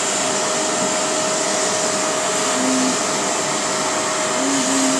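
Shark Navigator upright vacuum cleaner running steadily through its hose attachment, a constant rush of air with a steady motor whine over it.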